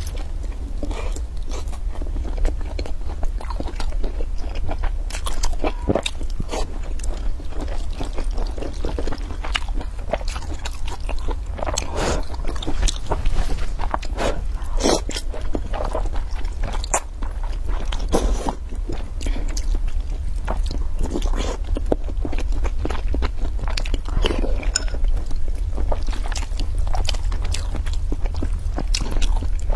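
Close-miked eating: chewing and biting of pan-fried pork buns and hot-and-sour glass noodles, with many short wet mouth clicks and smacks, and slurps as the noodles are sucked in.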